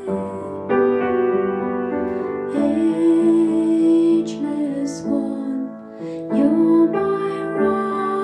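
Gentle, slow background music with sustained pitched notes, possibly with singing.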